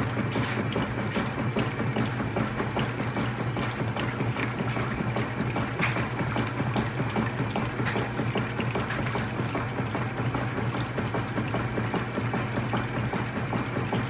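GE WCSR2090D2WW top-load washer agitating a large load in a full tub: a steady motor and transmission hum under churning, sloshing water, with a fine, constant clicking.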